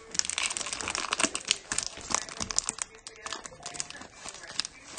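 Plastic card packaging crinkling and crackling as it is handled, with many quick irregular crackles.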